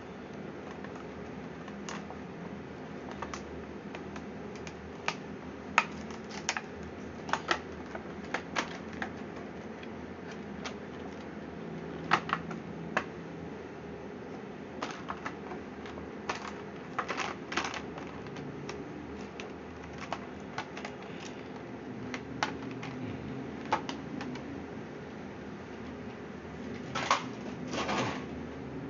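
Scattered light clicks and taps at irregular intervals, with a few louder knocks near the end, over a steady low background hum.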